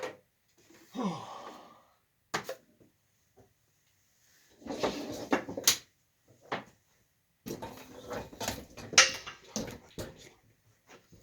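Irregular knocks, clicks and clatter of tools and parts being handled and set down, in bunches with short quiet gaps between them.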